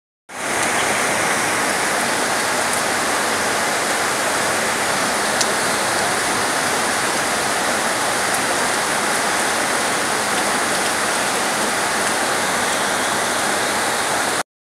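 Rain falling steadily: a dense, even hiss of downpour, starting abruptly and cutting off suddenly near the end.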